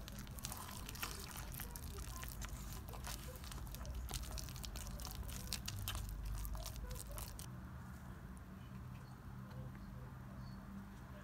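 Thick banana bread batter with walnuts being folded by hand in a stainless steel bowl: wet squishing, with frequent clicks and taps of the utensil against the bowl that thin out after about seven seconds.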